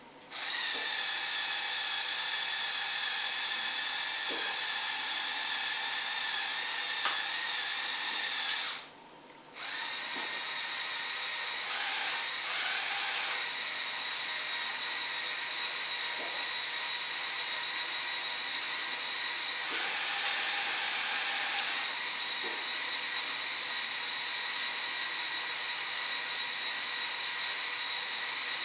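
Small electric motors and gearing of a Lego Technic UNIC URW-094 mini spider crane model whining steadily as the boom swings round and telescopes out. The whine stops briefly about nine seconds in, then starts again, and its pitch shifts a few times as different functions run.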